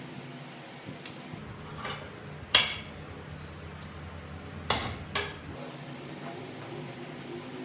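Metal-on-metal clinks and clanks of a socket wrench and extension working bolts on a Honda GX120 engine being taken apart. There are a few scattered clicks and two sharp, louder clanks about two and a half and four and a half seconds in.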